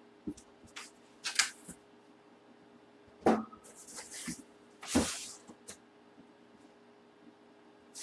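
Handling noises as items are picked up and set down: scattered knocks and rustles, the loudest a little after three seconds in and at five seconds.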